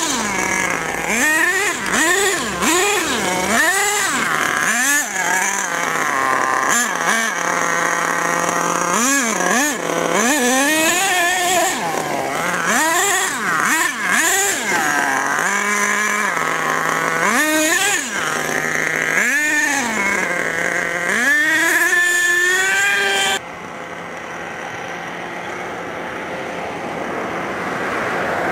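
HPI Savage RC monster truck's 3.5 cc nitro two-stroke engine, revving up and down over and over in quick swoops of pitch as the truck is driven, set to run rich on the high-speed needle. About three-quarters of the way through the sound drops suddenly to a quieter, steady note, and a passing car swells in near the end.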